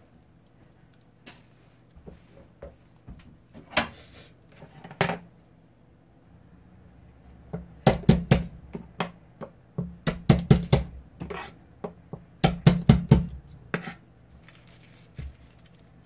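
Knife chopping on a cutting board: a few single knocks, then three short bursts of rapid strikes in the second half.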